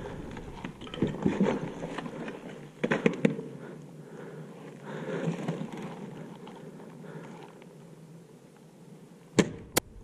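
Rustling and scattered knocks of a person moving in gear, then a sharp crack near the end as a Novritch SSG24 spring-powered bolt-action airsoft rifle fires, followed a moment later by a second shorter click.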